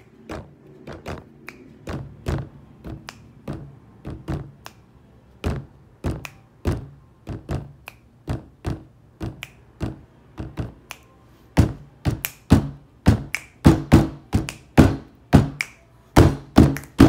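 Fists knocking out a beat on a hard surface, a tabletop drum beat: quiet, scattered knocks at first, then louder and steadier knocks, about two a second, from about two-thirds of the way through.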